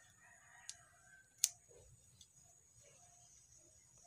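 Sweet potato shoots being cut: two short, sharp snips, a faint one just under a second in and a louder one about half a second later.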